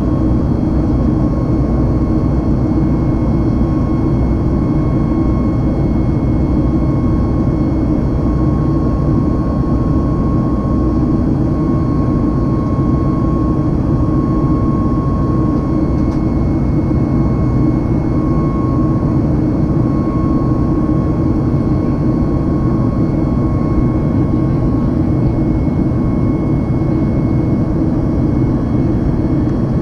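Steady cabin noise of a Boeing 737 MAX in flight, heard from a seat over the wing: a dense low rumble of airflow and its CFM LEAP-1B turbofan engines, with a thin steady high whine running through it.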